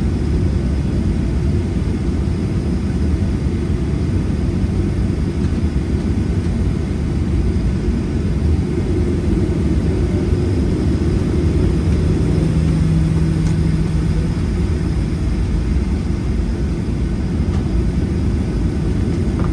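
Inside the cabin of a taxiing Boeing 737-700: its CFM56-7 turbofan engines at taxi power with a steady low rumble. A faint hum swells briefly about midway through.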